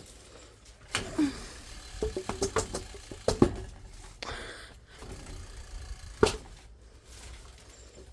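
Irregular knocks and clicks from a ceiling fan with a bent blade, a cluster of them in the middle.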